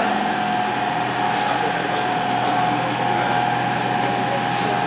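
Steady drone of underground metro station machinery: an even rush with a constant whine and a low hum underneath.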